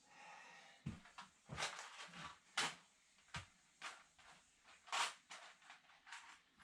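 Rummaging through a container of small workshop parts for copper washers: a brief rustle, then a string of irregular clicks and knocks from parts and their container being handled.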